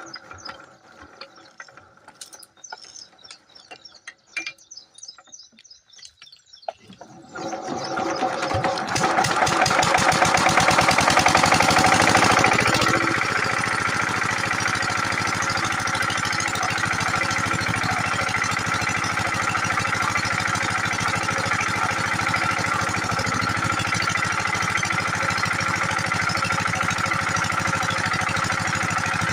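A diesel water-pump engine, an 8 hp pumpset, starts about seven seconds in after some faint knocks. It runs loud for a few seconds, then drops about twelve seconds in to a slightly lower, steady chugging run.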